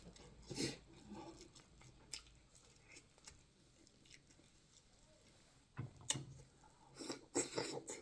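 Someone chewing food, with soft, short mouth clicks and crunches coming irregularly; quiet in the middle, with a cluster of louder bites near the end.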